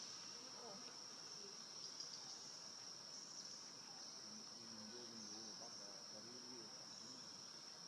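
Insects singing in a steady, high, continuous drone.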